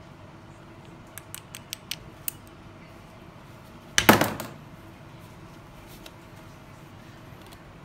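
Chuck key turning in the keyed chuck of a flexible-shaft hand grinder, its gear teeth making about six light clicks, then a louder clatter about four seconds in as the chuck key is dropped onto a wooden tabletop.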